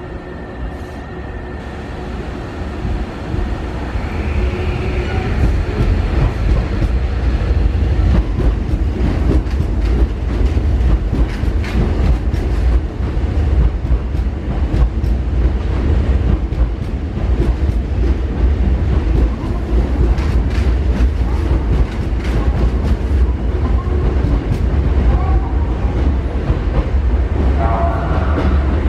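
A Hankyu commuter train pulling out of the Osaka-Umeda terminal platform. A steady tone stops near the start, then a low rumble builds over the first ten seconds with frequent wheel clicks and rail clatter as the train gathers speed.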